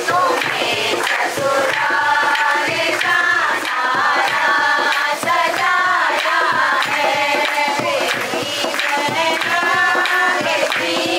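A song playing: vocals sung over instrumental music with percussion.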